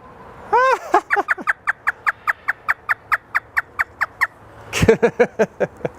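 A talking parrot imitating hysterical laughter: one rising whoop, then a fast run of short, falling 'ha' notes, about five a second, with a few lower notes near the end.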